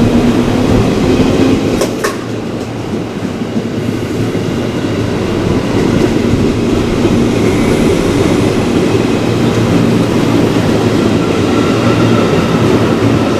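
A train running through the station at close range: a steady, loud rumble of wheels on rail, with a couple of sharp clicks about two seconds in.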